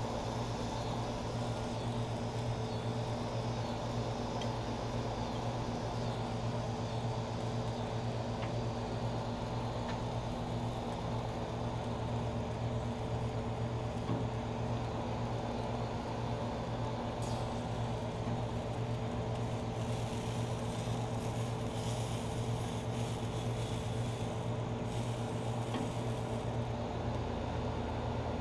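A steady mechanical hum and whir, like an electric fan or motor running, holding one pitch and level with a few faint ticks over it.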